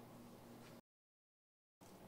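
Near silence: faint room tone with a low hum, broken about a second in by a second of complete dead silence where two clips are spliced together.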